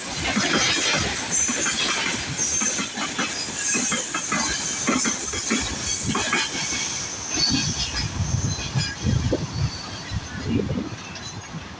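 Freight train wagons rolling past, their wheels knocking over the rail joints with high-pitched wheel squeal, fading near the end.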